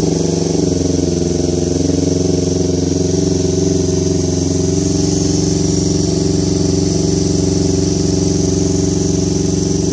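Yamaha MT-25's 249 cc parallel-twin engine running steadily through an R9 H2 full-system exhaust, the bike standing still. Its pitch rises a little right at the start, then holds even.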